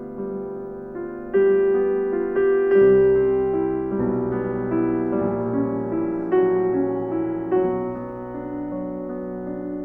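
Background music: slow piano playing sustained chords, a new chord struck about every second or so and left to ring.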